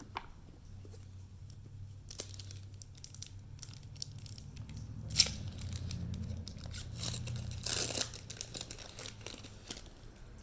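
Foil Pokémon booster-pack wrapper crinkling and being torn open by hand, with a sharp crackle about halfway through and a longer burst of crinkling later on.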